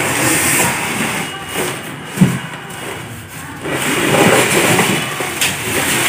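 Cardboard carton being lifted up off a washing machine, with cardboard scraping and the plastic cover sheet rustling. There is a single knock about two seconds in.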